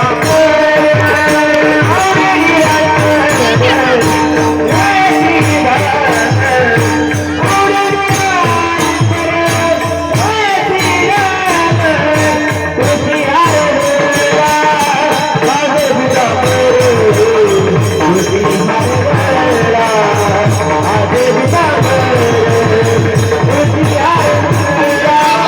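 Marathi devotional bhajan (panchapadi) singing, with a wavering melodic line carried over fast, steady percussion and jingling hand cymbals.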